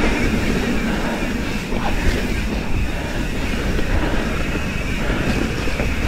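Mountain bike, a Pivot Switchblade, ridden along a dirt trail: a steady rumble and rattle of tyres and frame over the ground, with wind buffeting the microphone.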